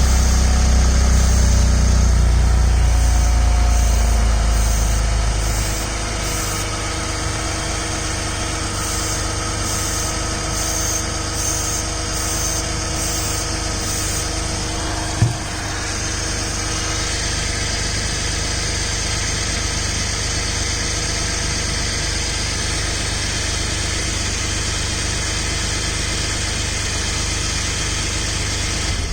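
Car exhaust at idle, heard close to the resonator, where the owner hears an exhaust leak through a hole in the resonator's side that the dealer calls a condensate drain. A heavy low rumble for the first few seconds settles into a steadier running sound, with a single knock about halfway.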